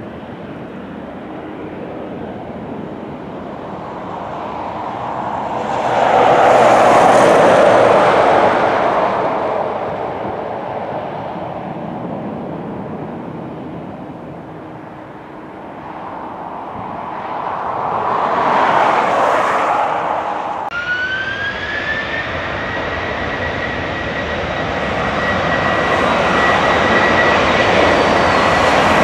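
Airbus A330 jet engines: a rushing noise that swells and fades twice, then, after a sudden change about two-thirds of the way in, a whine that rises in pitch and settles into a steady high tone over the engine rush, growing louder as the engines spool up on the runway.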